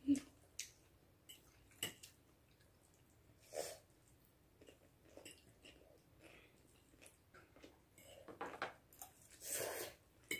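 Quiet eating sounds of spicy noodles being eaten with forks: scattered short clicks of forks on plates and chewing, with a louder cluster of sounds near the end.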